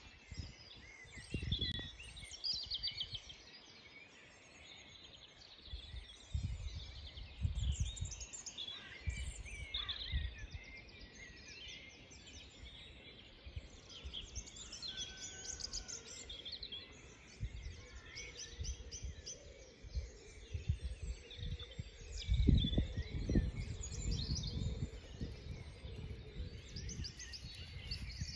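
Many songbirds singing and chirping together in short trills and calls. Wind gusts rumble on the microphone several times, loudest about two-thirds of the way through.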